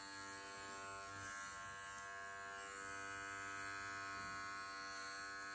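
Wahl Bravura 5-in-1 clipper with its blade on the 40 setting, running with a steady buzz as it trims the hair along the edge of a dog's ear leather.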